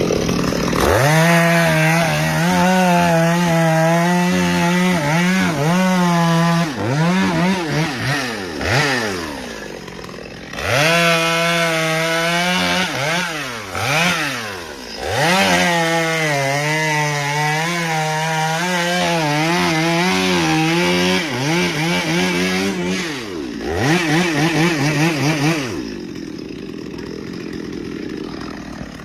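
Two-stroke chainsaw cutting wood, held at a steady high pitch under load, with the engine note swinging up and down several times between cuts. Near the end it drops to a much quieter, even sound.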